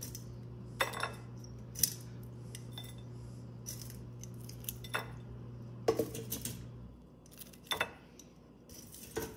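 Air fryer running with a steady low hum that cuts off about seven seconds in, while metal utensils clink and knock against cookware about six times.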